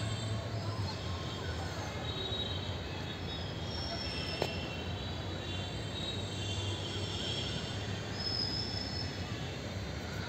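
Outdoor ambience: a steady noisy rumble with thin high whistling tones now and then, and a single sharp click about four and a half seconds in.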